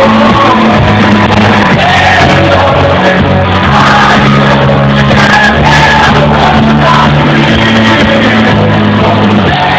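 Live rock band playing loud with a singer's voice carried over the music.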